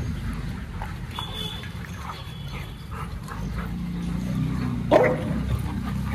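Dogs at play, with a single short, loud bark about five seconds in.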